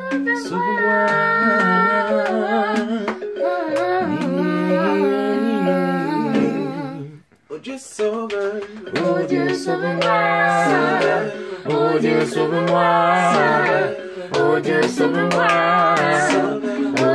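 Several voices singing a song together to electronic keyboard accompaniment. The music stops for about half a second roughly seven seconds in, then the singing and playing start again.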